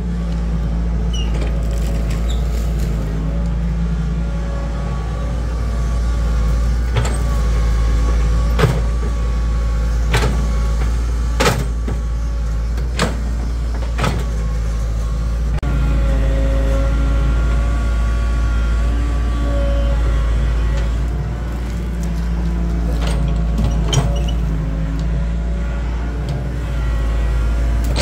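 Excavator engine running steadily, its pitch shifting now and then as it works. Sharp knocks come several times in the middle of the stretch and once more near the end.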